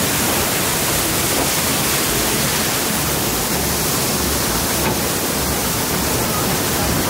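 Steady rush of falling water from an artificial waterfall, a constant even hiss with no breaks.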